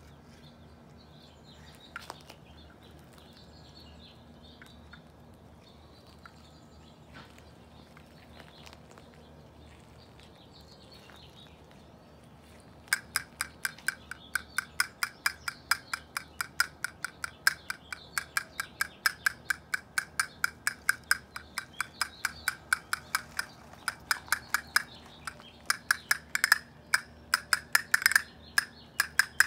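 Castanets clicking in a steady rhythm, about three or four strokes a second, starting about halfway through and breaking into quicker rolls near the end. Before them, only faint bird chirps.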